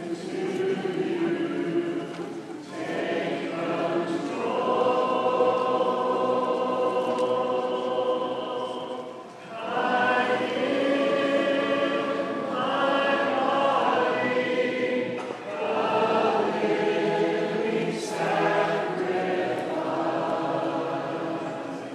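A church congregation singing a hymn together. Many voices hold long notes in phrases, with short breaks between lines.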